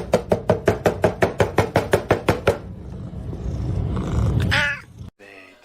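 A quick, even run of clicks, about five or six a second, over a low rumble, stopping about two and a half seconds in; then a single short cat meow near the end.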